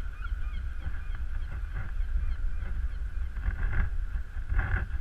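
Wind rumbling on the microphone over open harbor water, with birds calling faintly and a few short brighter sounds in the second half.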